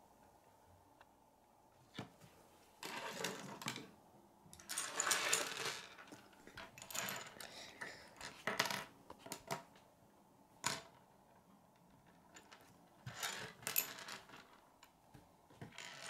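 Plastic K'nex rods and connectors rattling and clicking against a wooden tabletop as they are picked up and fitted together. The sound comes in irregular bursts of clatter with a few single sharp clicks.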